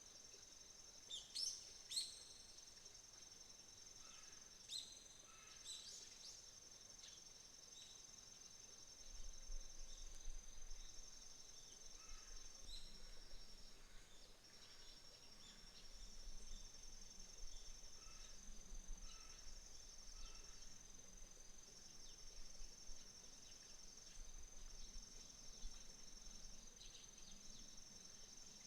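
Autumn insects trilling steadily in a high, pulsing chorus, with a few short bird chirps in the first few seconds. A faint low rumble comes in about a third of the way through.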